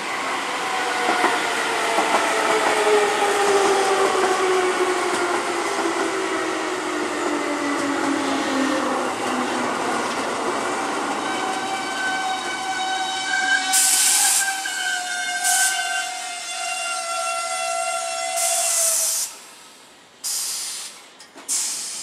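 Keihan electric commuter train braking into the station: the traction motors' hum falls steadily in pitch, then a steady high brake squeal rings out, broken by sharp bursts of air hissing. Near the end the squeal cuts off suddenly and a few short air hisses follow.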